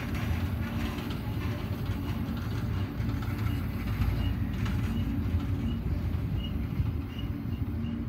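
Double-stack container train's well cars rolling past at close range: a steady low rumble of steel wheels on the rail with some clicking over the rail joints.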